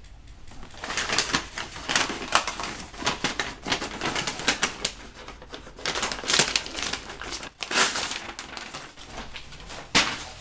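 Cardboard boxes and packaging being handled: irregular rustling, scraping and light knocks as boxes are slid, lifted and set down, with a few louder scrapes past the middle.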